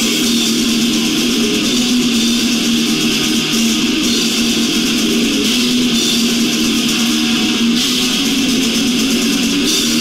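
Death metal band playing live, loud and unbroken, led by heavily distorted electric guitars.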